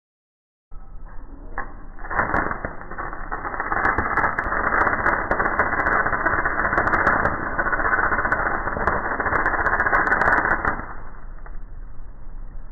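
Electric arc welding on a lawnmower driveshaft: a dense, rough crackling hiss from the arc, slowed down and pitched low along with the slow-motion footage. It starts after a moment of silence, builds about two seconds in, and dies down near the end.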